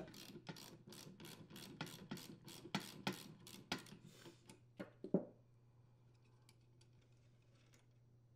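Socket ratchet clicking quickly, about five clicks a second, as it backs out a shoulder bolt, followed by a couple of separate clicks about five seconds in.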